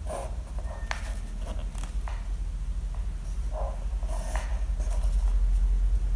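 Graphite pencil drawing lines along a plastic ruler on paper: several short scratchy strokes over a steady low hum.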